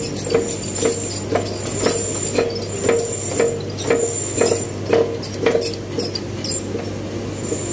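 Workshop press pressing a sleeve into a motorcycle cylinder: a rhythmic click with a short squeak about twice a second, over a steady hum. The rhythm gives way to scattered clicks near the end.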